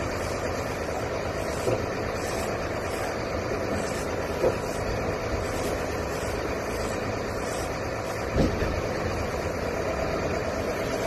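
Fishing boat's engine running steadily, a constant low drone, with three short knocks spread through it.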